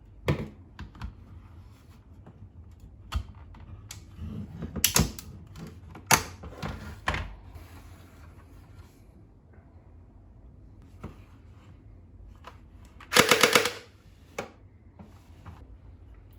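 A plastic toy gel blaster being handled, with scattered sharp clicks and knocks. Near the end there is a loud, rapid rattling burst lasting about half a second.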